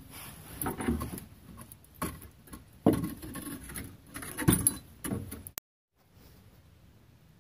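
Irregular metallic clinks and knocks as the rear strut's lower mounting bolt is worked out and the strut comes free, then near silence for the last couple of seconds.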